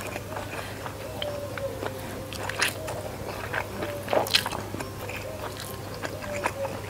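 Close-miked mouth sounds of a person chewing urap daun pepaya (papaya leaves with spiced grated coconut), with scattered short clicks and smacks. Fingers pinch and roll the leafy food. A steady low hum sits underneath.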